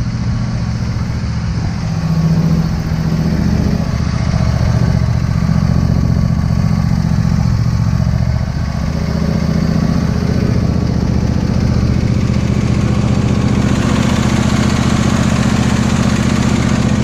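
John Deere D140 lawn tractor's 22 hp Briggs & Stratton V-twin engine running steadily just after starting. Its sound grows brighter in the last few seconds.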